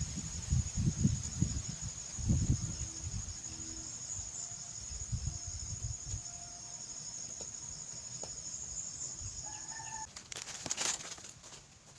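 A rooster crowing over a steady high-pitched insect drone, which stops about ten seconds in. Low thumps come through the first half.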